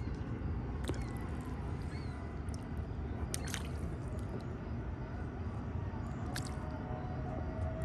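Bluegill feeding at the water's surface: a few short splashes and slurping pops as the fish strike floating food, over a steady low background rumble.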